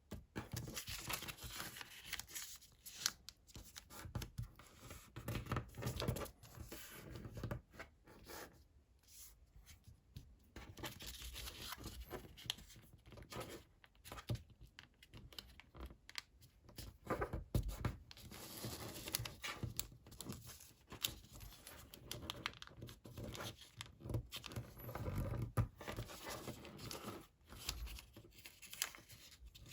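Square coloured origami paper being folded and creased by hand: irregular rustling and crinkling with sharp snaps as folds are pressed down, pausing briefly now and then.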